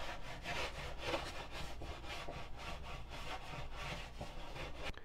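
Small razor plane shaving a balsa wing's leading edge in a rapid series of short scraping strokes, rounding over the corner.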